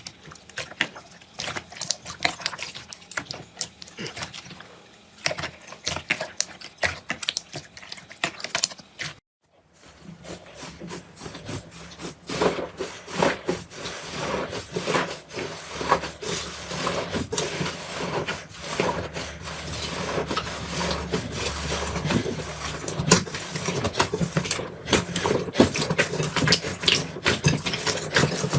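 Slime being handled, squeezed and pressed: dense, irregular crackling and clicky popping. It breaks off briefly about nine seconds in and then resumes fuller.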